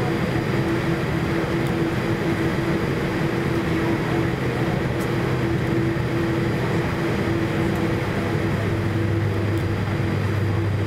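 Cabin noise inside a Boeing 787 taxiing on low engine power: a steady rush of air with a constant engine drone, and a deeper hum growing stronger near the end.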